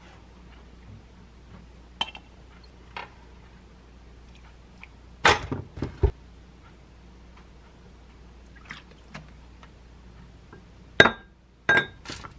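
Wooden spoon knocking and scraping against a glass mug as chili powder and minced garlic are spooned in. There are a few light taps, a louder cluster of knocks about five seconds in, and two sharp clinks near the end that ring briefly.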